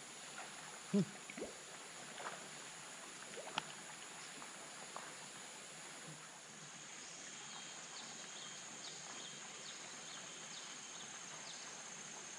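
Outdoor ambience by a fishing pond: a steady high insect drone, a few light knocks in the first few seconds, and a run of short repeated chirps, about two a second, in the second half.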